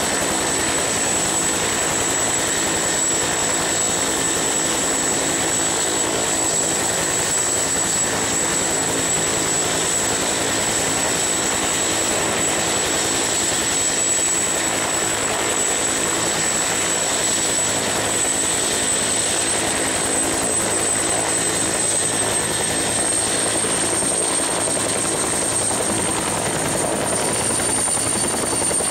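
Mil Mi-8/Mi-17-type military helicopter flying overhead at height: a steady rotor and turbine drone that holds an even level. A thin high whine sits above it and rises slightly in pitch near the end.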